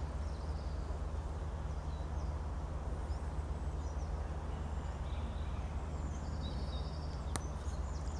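Steady low wind rumble on the microphone, with faint bird chirps scattered throughout and one sharp click about seven seconds in.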